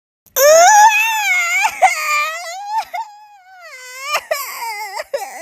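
Cartoon crying sound effect: a high-pitched, wavering wail that starts about a third of a second in, broken by short sobbing catches, with a new, steadier cry beginning near the end.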